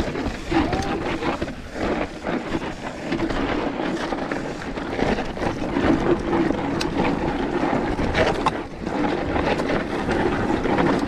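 Mountain bike descending rough, rocky dirt singletrack: tyres crunching over dirt and stones and the bike rattling with many small knocks and clicks, over wind rushing across the microphone.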